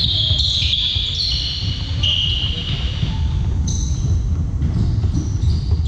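Basketball shoes squeaking on a hardwood gym floor as players run and cut. The squeaks come as a string of short, high chirps, thickest in the first three seconds and again from about four seconds in, over a steady low rumble.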